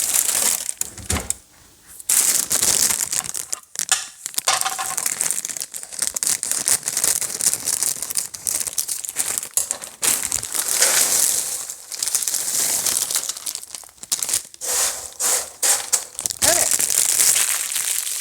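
Plastic bag of oyster crackers crinkling and rustling in repeated bursts as it is handled.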